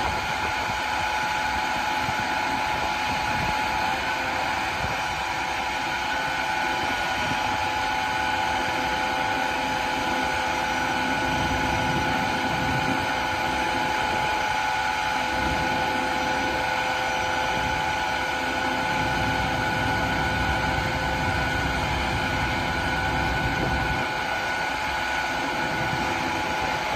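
The MaxxForce 9 diesel of a 2012 International 7400 bucket truck running steadily on PTO, with a steady whine from the hydraulic pump as the Altec aerial boom moves.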